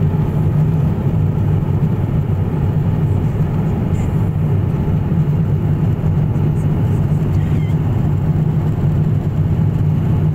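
Steady low cabin noise of an airliner in flight at cruising altitude.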